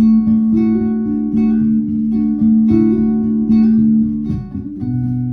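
Acoustic guitar strummed in a steady rhythm: the instrumental intro of a song, with no singing yet.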